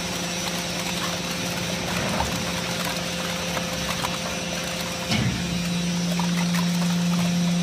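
Hydraulic baling press's piston-pump power unit running with a steady hum. About five seconds in, a short knock sounds and the hum grows louder.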